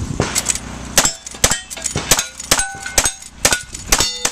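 A rapid string of rifle shots, one every half second or less, many followed by the ring of a hit steel target.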